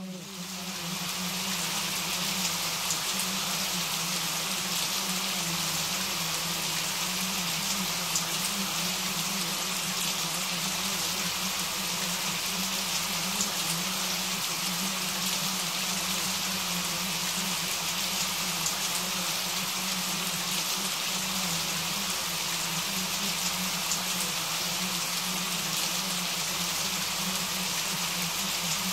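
Steady, heavy rain falling: a dense, even hiss of drops with no let-up, fading in over the first second or so, with a steady low hum underneath.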